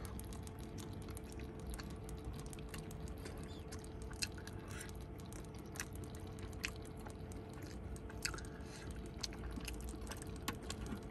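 A fork prodding and scraping a lasagna in a stainless-steel oven tray: faint, scattered clicks and soft squelches over a steady low hum.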